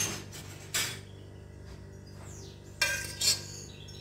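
Metal spoon scraping and clinking against a pot and glass tumblers while thick chocolate sauce is spooned into the glasses, in a few separate strokes.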